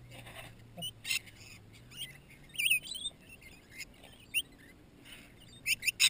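A flock of rainbow lorikeets feeding at close range, giving short, high chirping calls scattered through, with a few brief sharper squawks.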